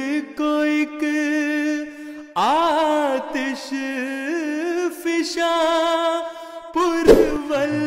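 Background music: a single unaccompanied voice singing a slow chant-like melody, with long wavering held notes and gliding turns. About seven seconds in, a short burst of noise cuts across it.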